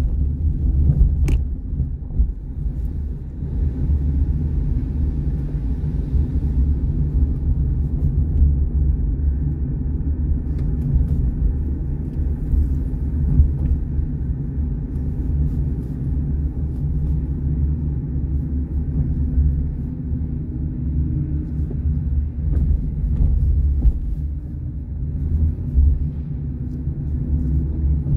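Steady low rumble of a car driving at low speed, its engine and road noise heard from inside the cabin.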